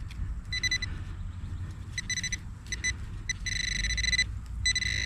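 Handheld metal-detecting pinpointer sounding its alert tone in on-and-off stretches, a few short beeps at first and then longer steady tones, as it closes in on a buried coin a few inches down. A low rumble runs underneath.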